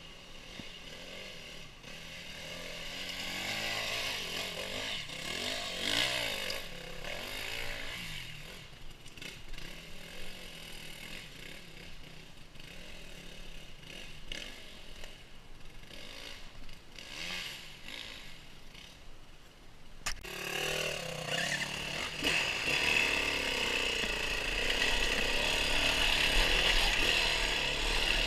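Small off-road vehicle engine revving up and down, its pitch rising and falling again and again, and getting louder over the last few seconds.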